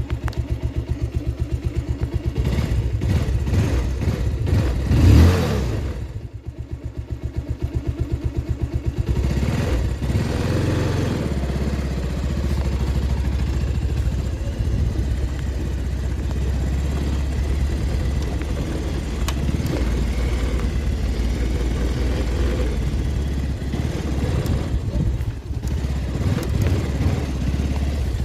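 Bajaj Pulsar 220F's single-cylinder engine running, its firing pulses heard one by one at first, with a brief rev about five seconds in, then running steadier from about nine seconds on. It is the engine noise its owner posts as a sound problem.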